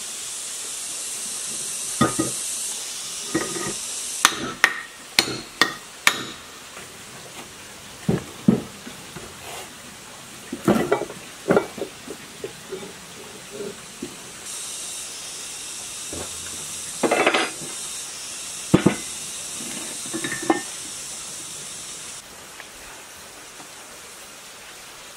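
Parts of a small water-turbine generator knocking and clinking together as it is reassembled: scattered taps and clinks, with a quick run of them about five seconds in and a brief scraping rasp past the middle. A steady hiss comes and goes behind them.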